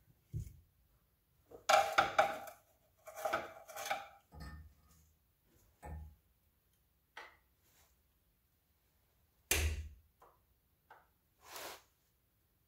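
A pry tool working the old axle seal out of a Honda L3 transmission case: a run of irregular metal scrapes and knocks, the loudest knock about nine and a half seconds in.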